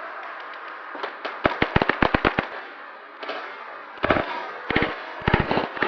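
Airsoft guns firing in rapid strings of sharp shots: a quick run of about eight shots between one and a half and two and a half seconds in, then several short bursts from about four seconds on.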